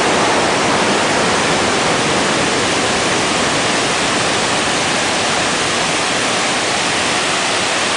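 Floodwater of a river in spate rushing and roaring steadily, a loud, even rush of water.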